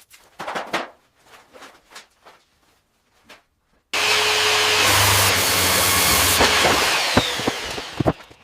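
Scattered knocks and scrapes of work on building material, then a power tool starts suddenly about four seconds in and runs loud and steady for about four seconds before winding down into a few clicks.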